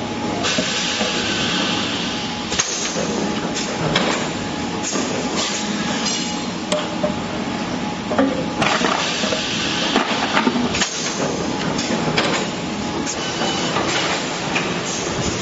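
PET bottle blow molding machine running: a steady mechanical din with repeated clunks and clicks, light clinks, and two long hissing blasts of compressed air venting.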